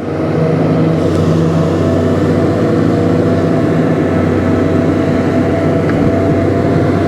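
A fishing boat's triple outboard motors running steadily, with a constant engine hum and some noise over it.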